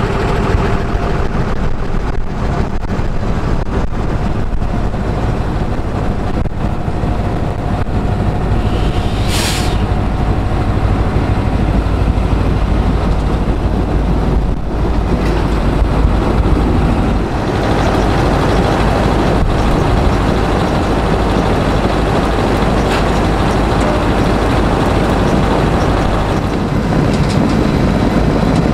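Heavy potato-harvest machinery running steadily: a tractor's diesel engine and the rattling conveyors of a Dewulf potato field loader. A short, sharp hiss comes about nine seconds in.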